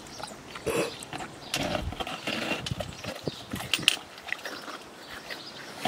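Two golden retrievers chewing and licking snow-cone shaved ice: a run of irregular sharp crunches and clicks.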